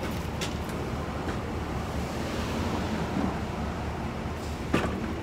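Steady outdoor rumble of wind and street traffic, with a faint click about half a second in and a louder sharp knock near the end as plastic tool cases are handled and set into a pickup truck bed.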